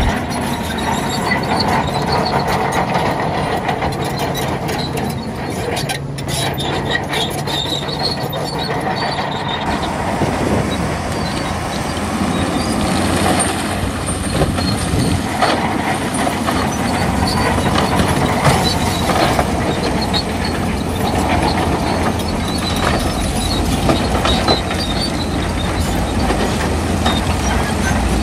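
Shantui bulldozer working: its diesel engine runs steadily under load while its steel tracks clank and squeal irregularly.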